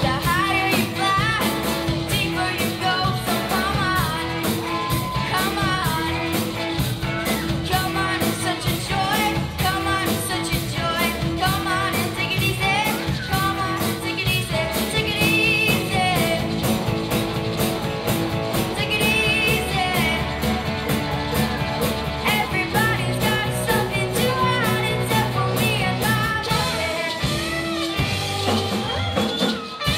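Live rock band playing a song: a girl's lead vocal over electric guitars and a drum kit keeping a fast, steady beat.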